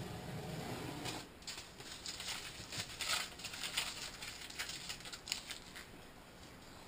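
Green painter's masking tape being pulled off its roll and pressed along a cabinet edge: a run of crackly rips and rustles starting about a second in and fading out in the last second or so.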